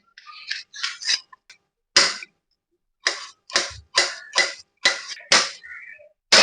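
Knife chopping a peeled cucumber finely on a cutting board: a run of sharp chops, uneven at first, then settling to about two a second.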